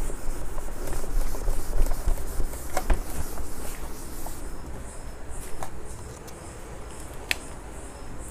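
Cloth rubbing across a whiteboard as it is wiped clean, a steady scrubbing that dies away about two-thirds of the way through, with a few light taps.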